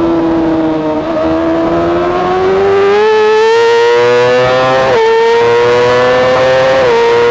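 Yamaha R6 inline-four race engine through its Akrapovic exhaust, heard from the bike's own onboard mic at full throttle. The engine pitch climbs steadily as the bike accelerates, then drops sharply with a quick upshift about five seconds in and again near the end.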